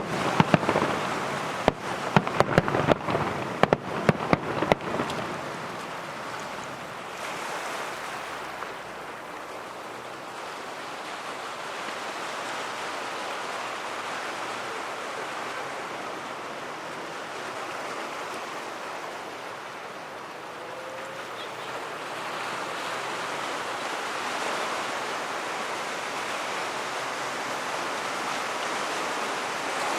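Fireworks crackling and banging in rapid succession for about the first five seconds, then a steady wash of noise that swells and eases slowly, like surf breaking on the beach.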